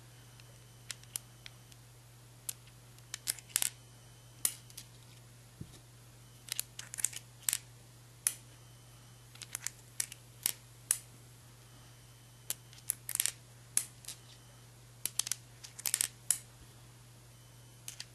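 Ruger Vaquero .357 single-action revolver being loaded through its open loading gate: sharp metallic clicks at an uneven pace, some in quick runs, as the cylinder is turned chamber by chamber and cartridges are slid in.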